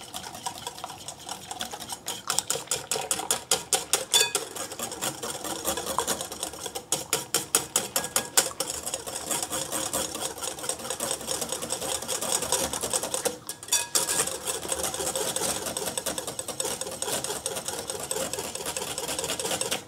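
Wire whisk beating a thin milk-and-egg batter in a glass bowl: a rapid, steady ticking of the tines against the glass over a wet swish, about six strokes a second, with a brief pause about two-thirds of the way through.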